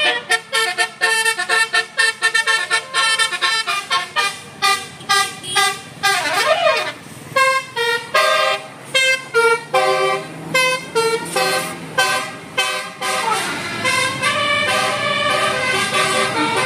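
Bus 'telolet basuri' musical air horn playing a fast tune of short multi-tone toots, with a couple of sliding pitch sweeps, over the low hum of the bus engine.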